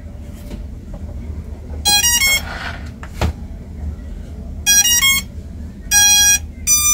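S808 Pro Max GPS drone powering up and playing its startup tones: several short runs of electronic beep notes, the last two held longer, with a single click in between.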